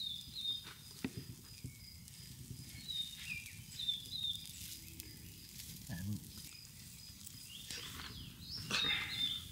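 Small twig fire crackling faintly under a singeing carcass, with short, high, downward-gliding bird chirps repeating in the background and a louder flurry of chirps near the end.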